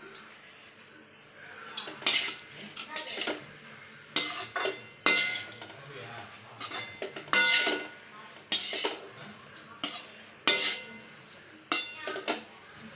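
Perforated steel spatula scraping and clinking against a steel kadai while stirring fried cauliflower and coriander, about once or twice a second, some strokes leaving a short metallic ring.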